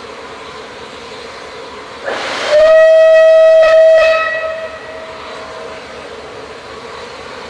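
Steam whistle of Southern Railway Rebuilt Battle of Britain Bulleid Pacific No. 34053 blown once: a rush of steam about two seconds in, then a single steady whistle tone for under two seconds that dies away. A steady hiss of steam runs underneath.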